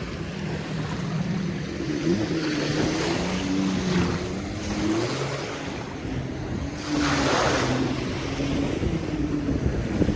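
Motorboat engine running offshore, its pitch wavering up and down, over surf washing on the shore. A louder rush of surf or wind comes about seven seconds in.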